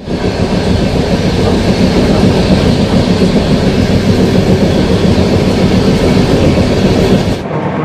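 Mumbai–Howrah Mail passenger train running at speed, heard from inside the coach: a loud, steady rumble and rattle of wheels on the rails. The upper hiss drops away abruptly near the end.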